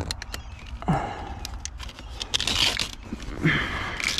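Corrugated plastic wire loom crinkling and scraping as a bundle of wires is worked out of it by hand, in a few rustling spells with light clicks.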